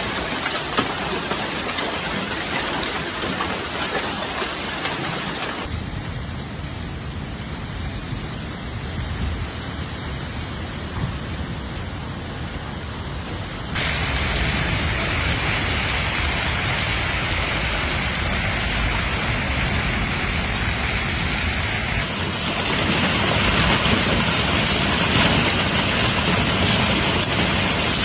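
Heavy storm rain falling as a steady hiss, in several short clips spliced together. It changes abruptly at each cut and gets louder about 14 seconds in and again about 22 seconds in.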